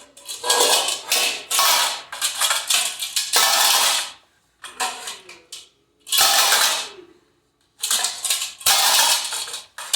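A toddler banging and rattling metal pots and pans, in loud clattering bursts broken by short pauses.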